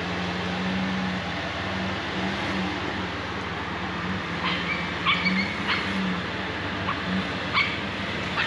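Off-road vehicle engine running steadily at low revs, with a dog yipping in short, sharp cries from about halfway through.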